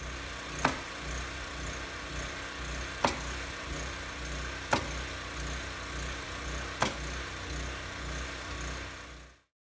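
A small engine-driven machine runs steadily with an evenly pulsing low hum. Four sharp shots from a pneumatic nailer, a second or two apart, fasten the plywood subfloor sheathing. The sound cuts off about nine seconds in.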